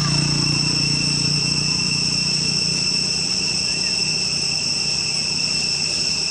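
Steady, high-pitched insect drone of several constant pitches, with a low hum underneath that fades out over the first two seconds or so.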